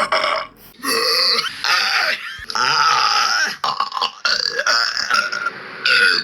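A person burping loudly, about six long drawn-out burps one after another with short pauses between them; the longest lasts about a second, near the middle.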